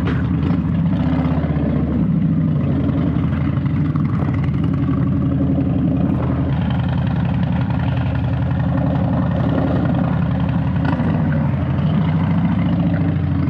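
Harley-Davidson V-twin motorcycle engine running steadily, its pitch wavering slightly up and down.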